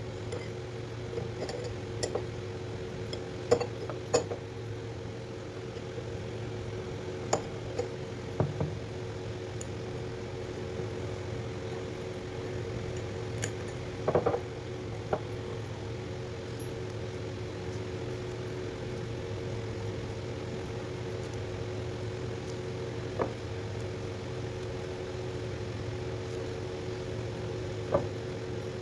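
Scattered light clinks and taps of hard objects knocked together, about ten over the stretch and irregularly spaced, over a steady low electrical-sounding hum.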